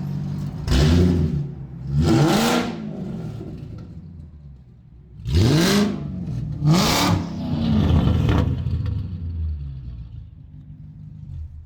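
BMW E39's V8 through a straight-piped dual exhaust with no mufflers, revved in quick blips over idle: two blips about a second apart early on, two more about five seconds in, then it settles back to a rumbling idle.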